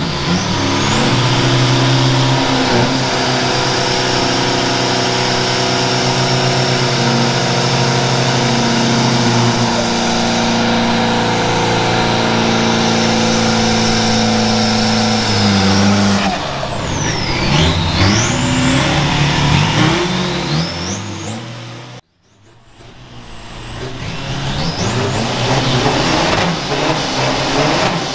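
Diesel pickup truck engines held at high revs while spinning their rear tyres in a burnout, a steady held note for about sixteen seconds, then revs rising and falling. Near the end the sound cuts off abruptly and builds back up as the revs climb again.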